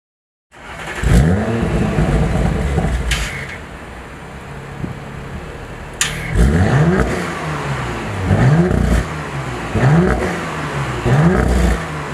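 Audi RS5 Sportback's 2.9-litre twin-turbo V6 revving over and over, the pitch climbing and dropping back every second or two, with a couple of sharp cracks along the way.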